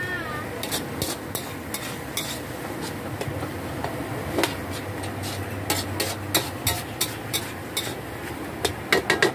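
Metal spatula scraping and clinking against a steel wok as minced chicken with holy basil is stir-fried, over a steady sizzle. The clinks come irregularly, with a quick run of them near the end.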